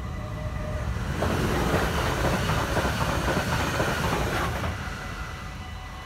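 Stadler FLIRT electric multiple unit passing through a level crossing: a rush of wheel and rail noise swells about a second in and falls away near the end. Under it the crossing's warning bells ring steadily.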